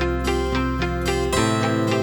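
Background music with quick plucked-string notes over a held bass line that drops out about a second and a half in.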